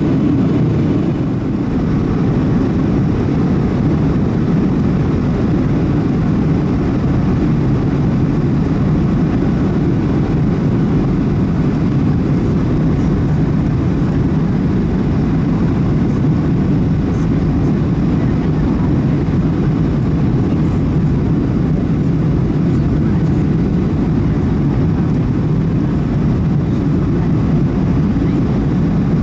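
Steady cabin noise inside a Boeing 737-800 descending on approach with flaps extended: its CFM56 engines and the rushing air, a low, even rumble.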